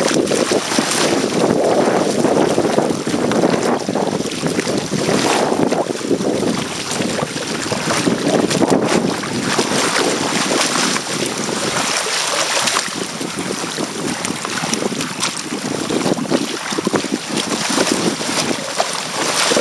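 Water rushing and splashing along the hull and outrigger float of a Hobie Tandem Island sailing trimaran under way in choppy water, with wind buffeting the microphone. It is a steady, noisy wash that swells and eases every second or two.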